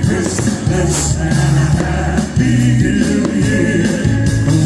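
Live band music with singing, part of a medley of Christmas songs.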